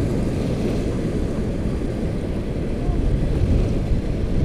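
Wind buffeting the microphone as a low, uneven rumble, over small waves washing up onto the sand.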